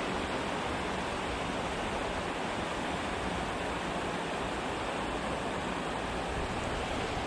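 Steady, even rush of water spilling over a dam.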